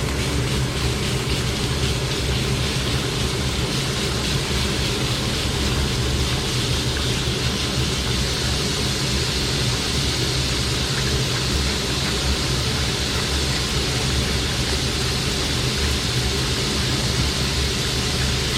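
Ground beef sizzling as it browns in an olive-oiled frying pan, over a steady low hum. The sizzle grows a little stronger midway.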